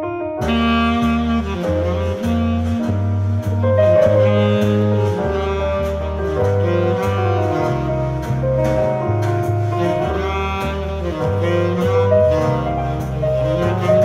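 Jazz with saxophone and double bass played back through a Bose SoundLink Flex Bluetooth speaker as a sound test; a new track starts just after a brief gap at the very beginning.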